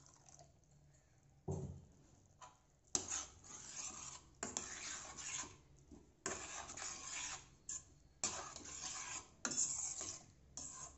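A steel spoon stirring liquid prawn curry in a stainless-steel pan, scraping against the pan in about five bouts of roughly a second each, starting about three seconds in. A single knock of the spoon on the pan comes about a second and a half in.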